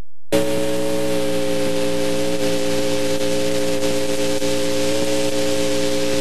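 A sustained organ chord, several notes held perfectly steady, that comes in abruptly a moment after the start, over loud hiss from VHS tape playback.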